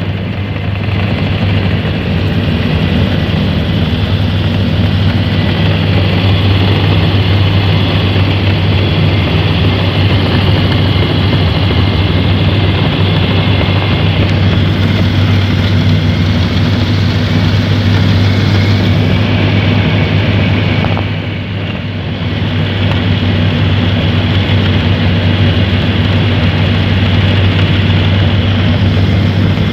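Gyrocopter's engine and propeller running steadily in flight, heard from inside the cockpit as a loud, even drone with a strong low hum. The level dips briefly about two-thirds of the way through.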